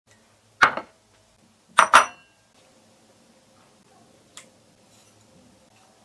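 Ceramic dishes knocking and clinking on a kitchen countertop: one sharp knock about half a second in, then a quick double clink with a short ring near two seconds, and a faint tick later.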